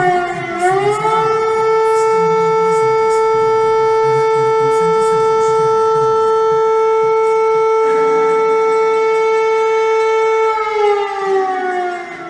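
Civil defense siren sounding one steady pitch. The tone dips and climbs back about a second in, holds for about ten seconds, then starts to wind down near the end.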